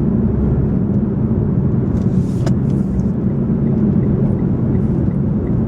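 Steady low road and engine drone from inside a moving car's cabin, with a brief hiss about two seconds in.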